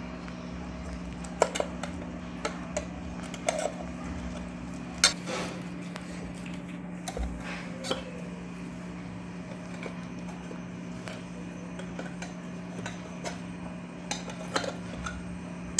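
Irregular metallic clinks and taps of hand tools working the ceiling fan's metal motor cover loose, over a steady low hum.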